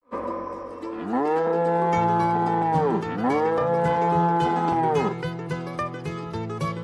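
Cow mooing: two long moos, each rising and then falling in pitch, over background music with a steady beat.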